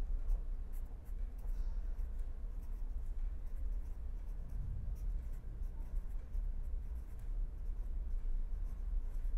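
Pen writing on paper: a run of faint, short scratching strokes as words are written by hand, over a steady low hum.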